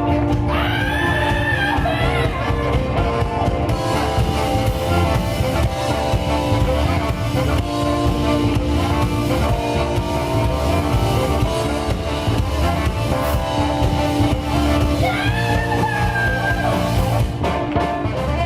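A rock band playing, with drum kit and guitar over a full low end and held notes, and a couple of sliding melodic phrases.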